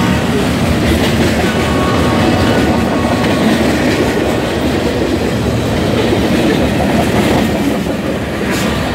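Freight cars of a short local freight train rolling past, wheels clattering over the rail joints with a steady rumble that eases slightly near the end.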